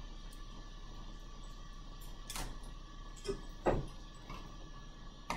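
Quiet room tone with a steady low electrical hum, broken by a few soft knocks and clicks about halfway through.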